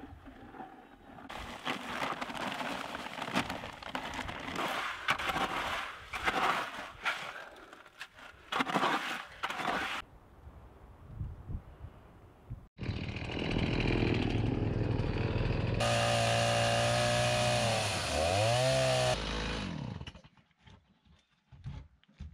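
Several seconds of irregular scraping and knocks, then a chainsaw running steadily, its pitch sagging and picking back up once before it stops.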